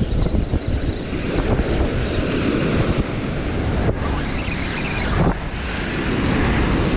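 Ocean surf breaking and washing up the beach, with wind buffeting the microphone in gusts.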